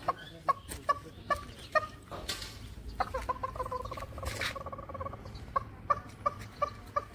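Turkey clucks, sharp short calls repeated about two or three a second, with one longer held call in the middle lasting nearly two seconds.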